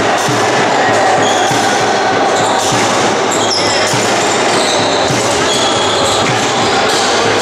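Handball play on a wooden sports-hall floor: the ball bouncing in repeated dull thuds, with short high squeaks of shoes on the court over the hall's echoing background noise.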